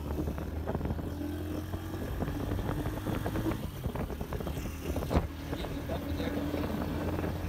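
Small motorcycle engine running steadily while riding, heard from the pillion seat, with one sharp knock about five seconds in.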